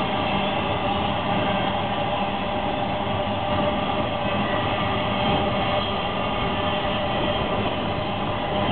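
BNSF intermodal freight train passing, its flatcars carrying truck trailers: a steady rumble and rattle of cars rolling on the rails, with a few faint steady tones over it.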